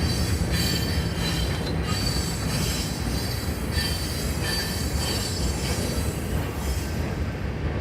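CN freight train rolling past with a steady rumble of steel wheels on rail, and high-pitched wheel squeal that comes and goes. A low steady tone fades out about two seconds in.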